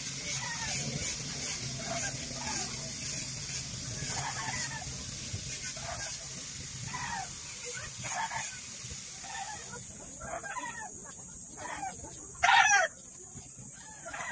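Chickens clucking and calling in short repeated calls, with one louder call about twelve seconds in.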